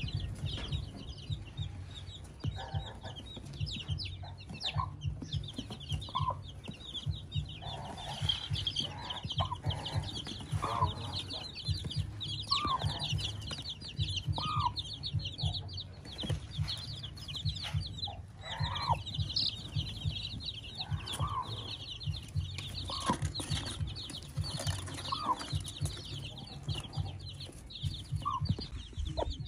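A brood of newly hatched chicks peeping continuously in a dense high chorus, while the mother hen gives short clucks every couple of seconds. A low rumble runs underneath.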